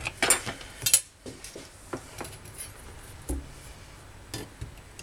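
Hard clinks and knocks on a glass chopping board as tools are moved and set down on it: two sharp clinks in the first second, then a scattering of lighter taps.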